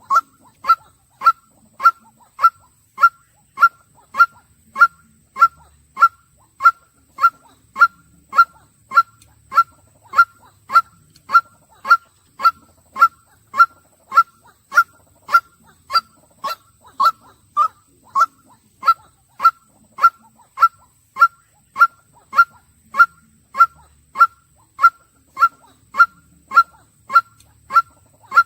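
White-breasted waterhen calling a short, honking 'kwak' note over and over at a very even pace, a little under two calls a second.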